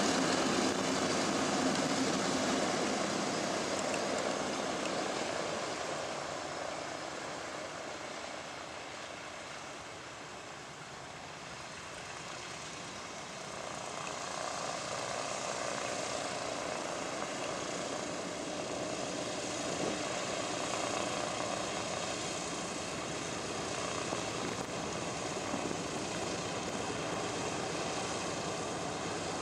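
Radial piston engines of a World War II bomber running steadily with a propeller drone; the sound fades somewhat toward ten seconds in, then builds again and holds.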